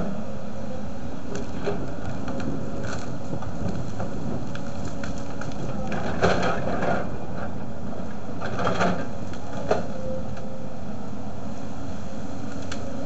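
Volvo tracked excavator's diesel engine running steadily as the bucket and thumb push into brush, with short bursts of cracking and snapping of branches and small trees breaking, three times from about the middle on.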